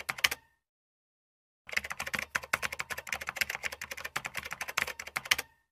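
Typing sound effect of rapid key clicks: a short run that stops about half a second in, then after a pause of just over a second another run of about four seconds.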